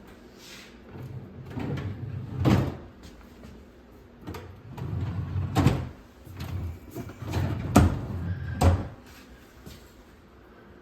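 Vanity drawers being slid open and pushed shut one after another, a rumbling slide each time ending in a sharp knock as the drawer closes; about four knocks in all.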